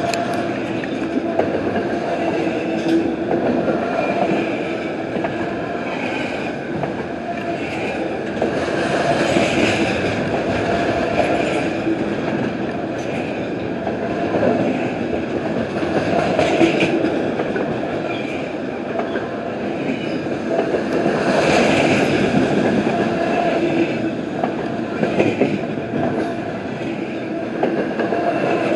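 Double-stack intermodal container cars of a freight train rolling past at close range: a continuous rumble and wheel noise on the rails, with steady ringing tones running under it.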